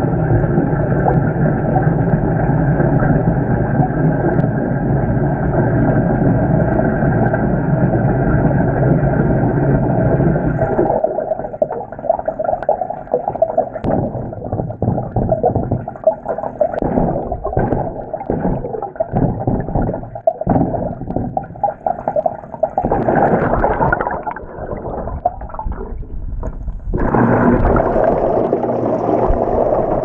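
Water in a top-loading washing machine drum, heard from under the water: a steady rush of fill water pouring in until about eleven seconds in, then uneven gurgling and sloshing, swelling to a steady churning rush again near the end as the impeller stirs the load.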